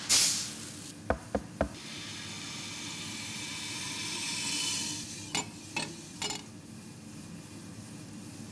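Green coffee beans poured out of a plastic bucket into a stainless-steel bowl, a brief rush of hard beans hitting metal, then a steady hiss of beans sliding and draining as they swirl toward the centre. Several sharp clicks come shortly after the pour and again about midway, over a steady low hum.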